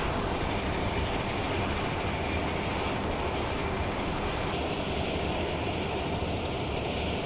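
Jet transport aircraft engines running: a steady noise with a deep rumble underneath. The higher hiss drops a little about four and a half seconds in.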